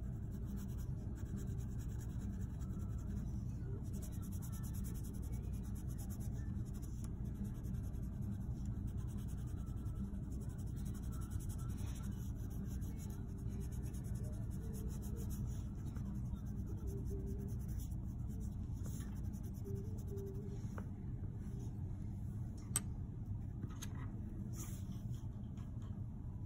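Prismacolor colored pencil (PC938 white) scratching on paper in quick, repeated shading strokes, over a steady low hum. A single sharp click comes near the end.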